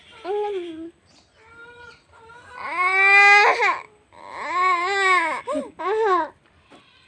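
A baby crying in a series of wails that rise and fall in pitch, the longest and loudest about three seconds in.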